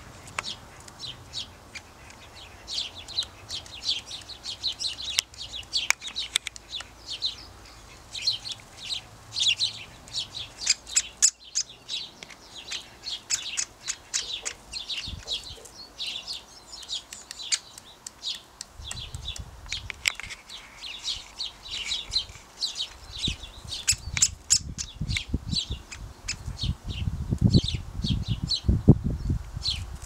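Birds chirping: quick runs of short, high calls throughout. A low rumble joins in from about twenty seconds in.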